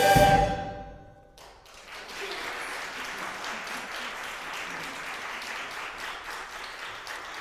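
A church choir and piano's final chord dies away in the first second or so. An audience then breaks into steady applause that carries on to the end.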